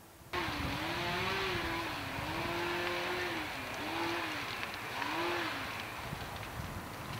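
An engine revving up and falling back about four times over a steady hiss. It cuts in suddenly just after the start.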